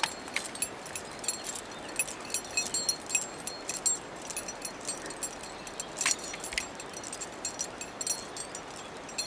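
Metal climbing gear clinking and jingling irregularly with each step, short bright rings scattered through, the loudest about two and six seconds in, over a steady hiss.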